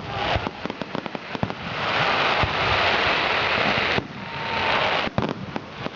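Fireworks display: a rapid string of sharp crackling pops, then about two seconds of dense crackling hiss, then more scattered pops near the end.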